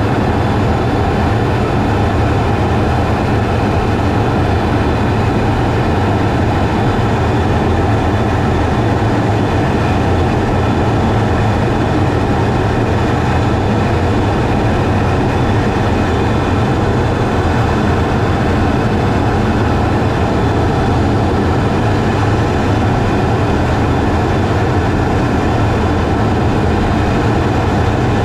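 Steady cockpit noise inside a fighter jet in flight: a loud, unchanging low rumble of engine and airflow, with faint steady whining tones above it.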